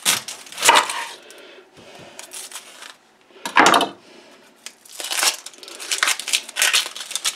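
A chef's knife cutting the ends off a red onion against a wooden cutting board, with two sharp knocks in the first second and a louder knock about halfway. Then the dry, papery outer skin of the onion crackles as it is peeled off by hand.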